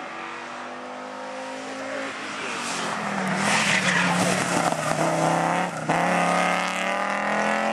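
Audi rally car approaching at speed with its engine note building, tyres skidding and spraying loose surface as it passes close about three to four seconds in. The engine note breaks briefly about six seconds in, then climbs again as the car accelerates away.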